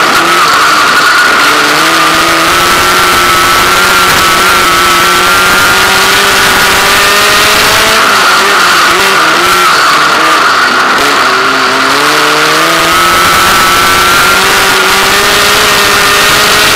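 Sprint car engine at high revs on a dirt oval, loud in an onboard recording. Its pitch dips and climbs again several times as the driver lifts for the corners and gets back on the throttle.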